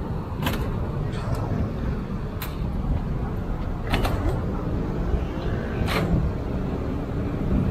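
Scrap wood and cardboard being thrown into a dump truck's bed: a handful of sharp knocks a second or two apart, over a steady low rumble of road traffic.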